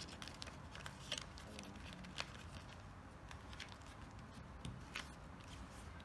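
A sheet of paper being folded and creased by hand: faint rustling with a few sharp crackles, the loudest about one, two and five seconds in.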